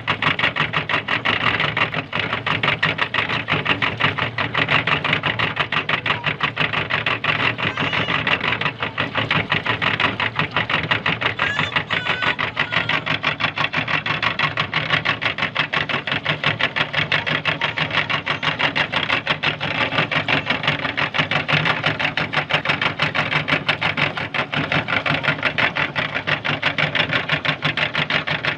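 Electric meat grinder running steadily, its motor and mechanism giving a fast, even rattle without a break.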